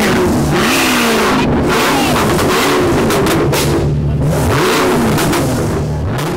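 Mercedes-Benz C63 AMG coupe's V8 being revved while stationary. The engine note climbs and drops back several times over a steady idle.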